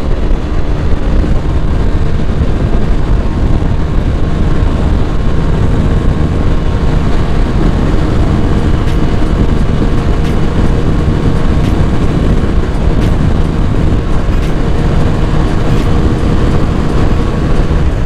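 Heavy wind rush on the mic at highway speed over the steady drone of a bored-up Yamaha NMAX scooter engine, its speed slowly rising.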